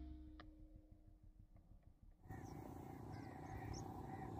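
Faint outdoor ambience. About halfway in, small birds start chirping in short arching calls over a steady faint hum. Before that it is nearly quiet, with one faint click.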